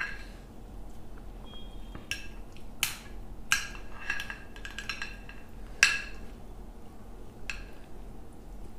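A series of sharp, ringing clinks as crab shell and fingers knock against a glass plate during hand-eating, the loudest about six seconds in.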